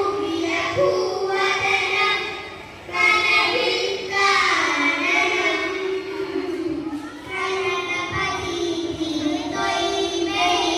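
A child singing a melodic song solo, in long held and gliding notes, with two short breaths between phrases.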